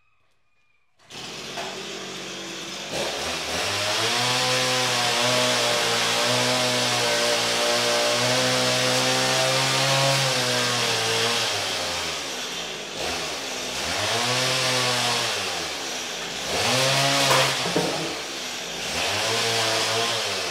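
Petrol chainsaw cutting wood. It starts about a second in, runs at a steady speed at first, then its engine pitch swings up and down repeatedly in the second half.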